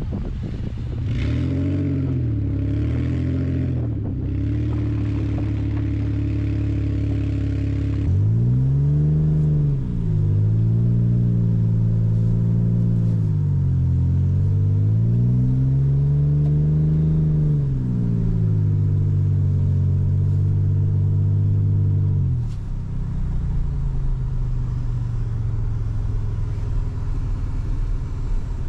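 Toyota Tacoma pickup engine revving up and down as the truck is drifted on snow, its pitch rising and falling several times before dropping back to a low steady idle about 22 seconds in. For the first several seconds it is heard from outside the truck with wind noise on the microphone, then from inside the cab.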